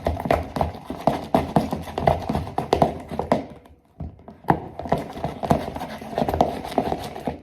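Spoon stirring slime in a bowl: a quick, irregular run of knocks against the bowl, pausing briefly a little past halfway.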